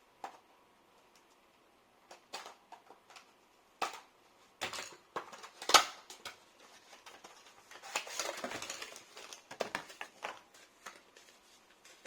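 Small hardware parts being handled while a Samsung SSD is fitted to an iMac drive mount: irregular clicks and knocks, the loudest a sharp click about six seconds in, then a stretch of rustling and scraping.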